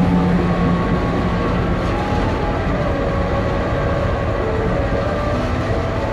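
Diesel locomotive of a standing passenger train running at idle: a steady low rumble with faint drifting tones above it.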